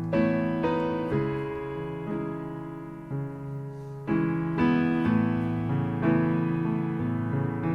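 Solo piano playing slow, sustained chords that ring on, with new notes struck about once a second: the quiet opening of a ballad before the singing comes in.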